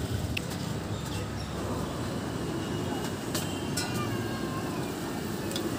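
Steady roadside street noise with a low traffic rumble and a few light clicks.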